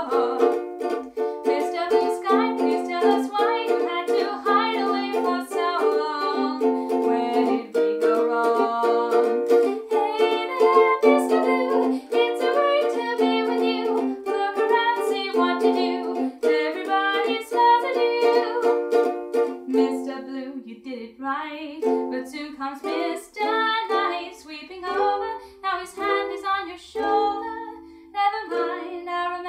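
Ukulele strumming chords; the playing grows sparser about two-thirds of the way through.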